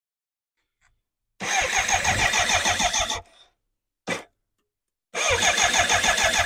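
BMW K100 inline-four being cranked over on its electric starter in two bursts of about two seconds each, a rapid even chug of about five or six beats a second, without firing. It is turned over so that an inline spark tester on one plug lead can show whether that cylinder gets spark. A brief knock comes between the two bursts.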